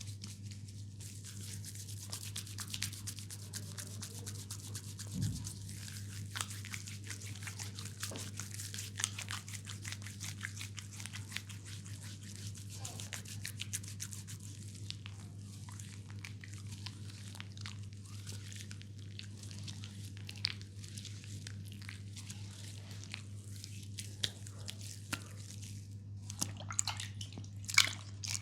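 A knee being cleaned close to the microphone: a dense, fine crackle of rubbing and scrubbing on skin over a steady low hum, with a few louder wet clicks near the end.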